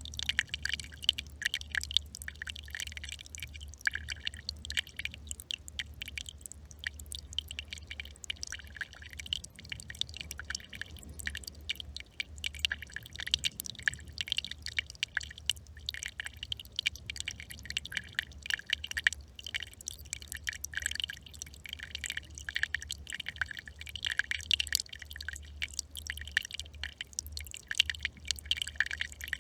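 A small brook trickling and babbling over stones: a steady run of quick, irregular drips and splashes.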